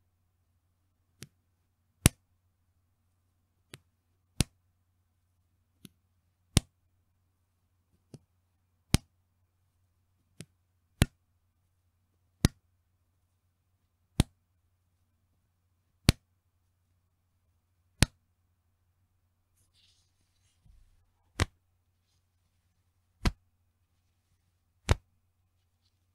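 Bra band elastic pulled and let go, snapping back with a sharp slap ('petin') again and again, about one every one to two seconds. Most snaps are loud and a few are softer, over a faint low hum.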